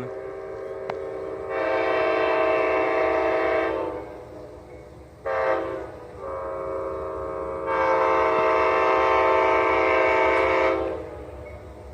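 Locomotive's five-chime Nathan K5LA air horn sounding a steady chord in a long blast, a short blast and another long blast.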